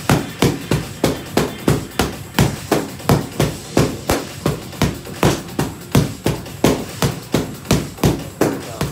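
A pair of wooden fighting sticks knocking in a steady fast rhythm, about three sharp clacks a second, each with a short woody ring, during a double-stick drill.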